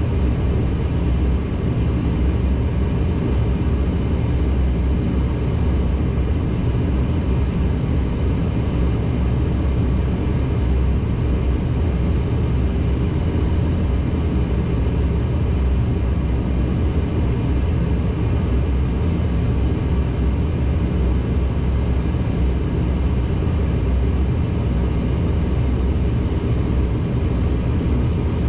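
Cabin noise inside a Dash 8-400: its two Pratt & Whitney Canada PW150A turboprops and propellers run with a steady drone, a stack of steady humming tones over it, unchanging in pitch and loudness.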